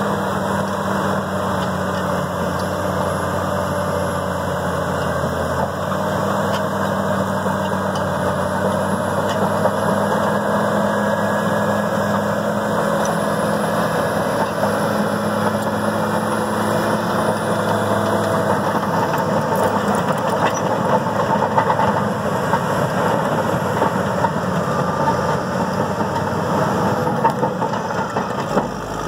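Caterpillar D6R LGP crawler dozer's diesel engine running steadily while the machine pushes dirt with its blade. The engine note shifts a few times and dips briefly near the end.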